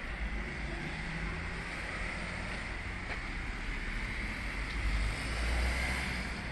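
Steady outdoor background noise, a low rumble with a hiss over it, swelling briefly about five seconds in.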